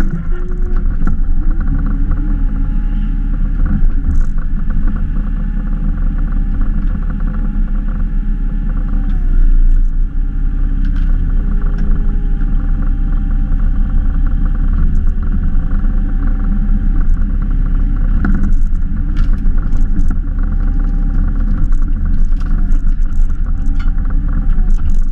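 Hitachi EX22 mini excavator's diesel engine running steadily with its hydraulics working the splitter and boom. A whine in the engine note dips briefly in pitch several times as the hydraulics take load, with occasional short knocks over it.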